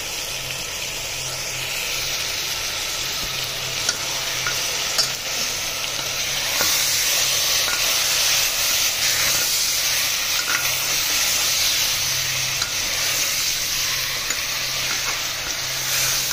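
Mutton, onions and ground spices sizzling in hot oil in an open pressure cooker while a metal spoon stirs them, with a few sharp clicks of the spoon against the pot. The sizzle grows louder about six and a half seconds in.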